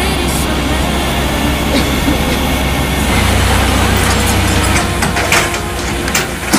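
Tow truck engine running steadily while it works its lift, the low hum getting louder about three seconds in, with a couple of sharp knocks near the end.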